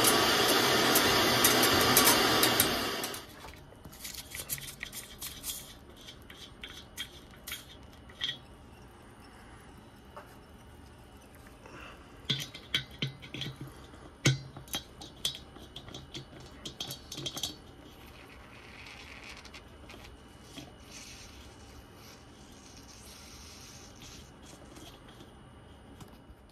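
A loud, steady rushing noise that cuts off abruptly about three seconds in, followed by scattered light clicks and knocks of tools and fittings being handled during boiler plumbing work.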